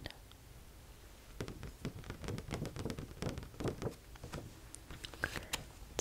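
Close-up handling sounds of a stiff paper fact card being picked up and held: soft rustling with a quick run of small taps and scratches, starting about a second and a half in.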